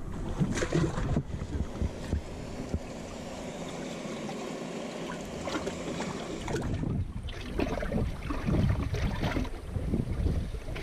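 Wind buffeting the microphone on an open boat: a low, irregular rumble with a steadier hiss in the middle, gusting harder in the second half.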